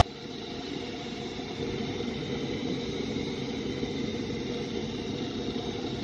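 Vacuum cleaner running steadily as its hose sucks polystyrene filling beads off a wooden parquet floor; a constant rushing hum that builds slightly over the first second or so.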